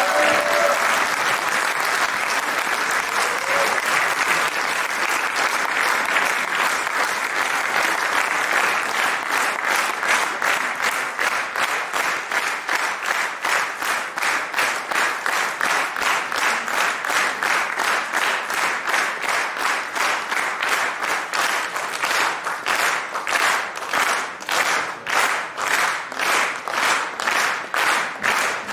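Audience applause after a choir's final chord dies away in the first second; the clapping falls into rhythmic unison partway through, about two claps a second, growing more marked toward the end.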